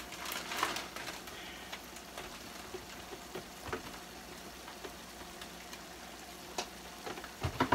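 Ground beef sizzling in a skillet on the stove, a steady frying hiss with a few light clicks scattered through it.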